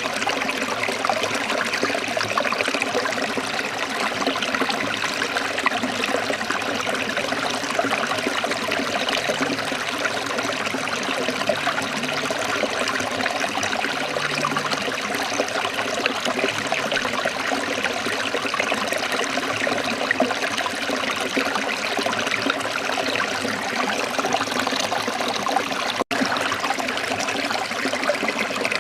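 Running water flowing steadily, an even continuous splashing rush; near the end it breaks off for a split second and resumes.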